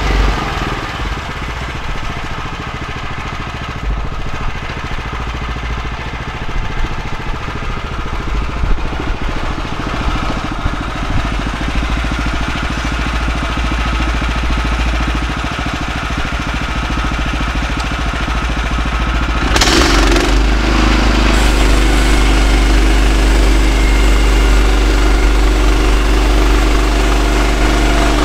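The engine of a Woodland Mills HM126 band sawmill running steadily. About two-thirds of the way in it grows louder and fuller.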